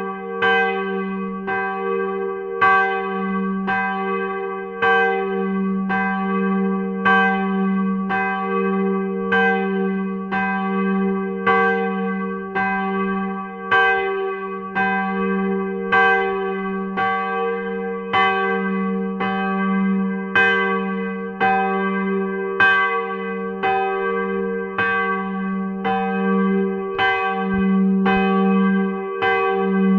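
Swinging church bell, cast by Van Midwolda in 1949, about 580 kg and tuned to G′, rung by a crankshaft drive. Its clapper strikes at an even pace of about one stroke a second, over a steady deep hum that rings on between strokes.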